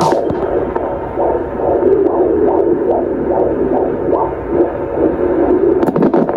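Handheld fetal Doppler monitor picking up a 30-week baby's heartbeat and playing it through its speaker: fast, even pulses, a little over two a second, over a steady hum. A few sharp clicks come near the end.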